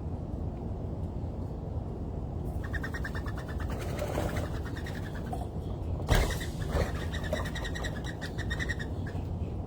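An animal's call: a rapid, even chattering series of pulses lasting several seconds, with a sharp knock about six seconds in, over a steady low rumble.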